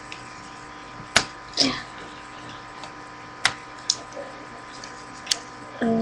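Plastic parts of a Transformers deluxe-class Ratchet toy figure clicking and snapping as it is folded and transformed by hand: a handful of sharp separate clicks spread over several seconds, the loudest about a second in.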